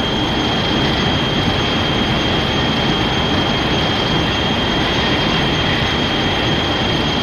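Shin Godzilla film sound effect: a loud, steady rushing noise with a thin, high whistle-like tone held through it, starting abruptly.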